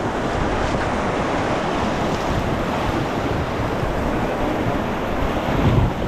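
Whitewater river rapids rushing steadily around an inflatable raft, with wind buffeting the microphone and a brief low gust near the end.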